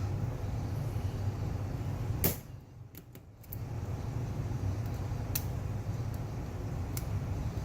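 A few sharp metal clicks as a tool works at the retaining clip inside a Subaru SVX power steering pump, over a steady low hum. The hum cuts out for about a second after the loudest click, about two seconds in.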